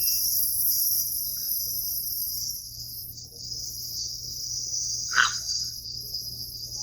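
Steady high-pitched chorus of crickets, with a low steady hum underneath and one brief louder sound about five seconds in.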